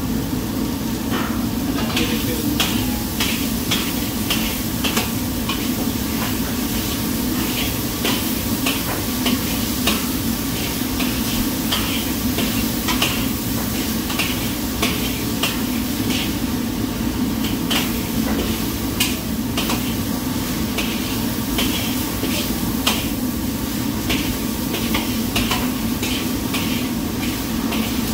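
Stir-frying in a wok: a metal utensil scrapes and knocks against the wok about twice a second, over a steady low roar.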